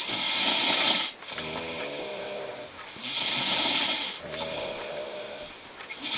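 A sleeping person snoring: a loud hissing breath about every three seconds, each followed by a quieter, pitched vibrating snore.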